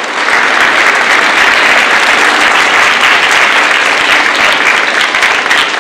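Audience applauding: a steady, loud round of many people clapping.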